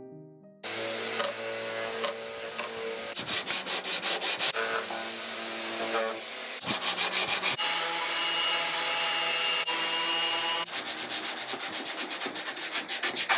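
Festool Rotex 90 sander running against bare wood, with bursts of quick rhythmic strokes as it works over the drawer and pigeonhole panels. Near the end comes hand sanding, rapid back-and-forth strokes about five a second.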